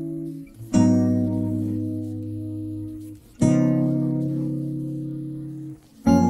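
Background music of slow acoustic guitar chords: three chords struck in turn, each left to ring out and fade before the next.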